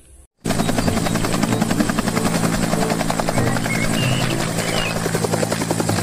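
Bell UH-1 'Huey'-type helicopter flying, its two-bladed main rotor beating in rapid, even chops over a steady engine drone. The sound cuts in suddenly about half a second in.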